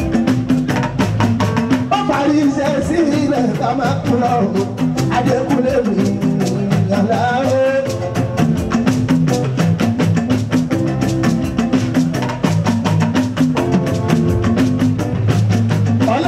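Live fuji band music: dense, fast percussion under pitched instrumental lines, with a singing voice at times.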